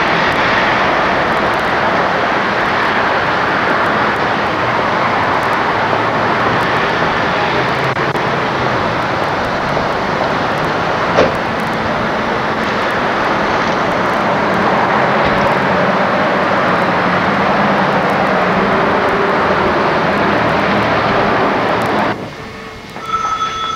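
Steady road and wind noise of a moving car, with its engine running low underneath; it cuts off abruptly about two seconds before the end.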